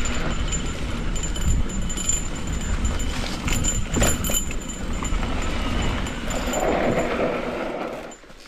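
Cannondale Scalpel mountain bike rattling and clattering down a rough dirt trail, with wind rumbling on the microphone. The noise drops sharply near the end as the bike slows.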